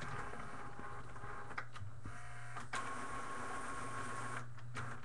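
A small motorized machine whirring in short runs that start and stop, with a few clicks between them, over a steady low hum.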